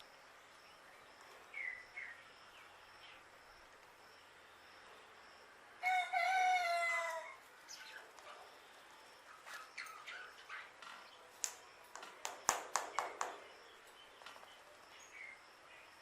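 A bird gives one loud rooster-like crow, about a second and a half long and falling in pitch, after a couple of short chirps. A run of sharp clicks follows near the end.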